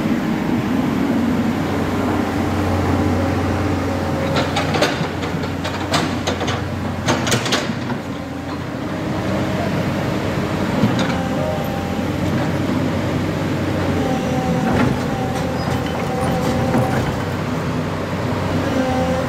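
Excavator's diesel engine running steadily under a low hum, with a cluster of sharp knocks and clanks about four to eight seconds in and a few single ones later.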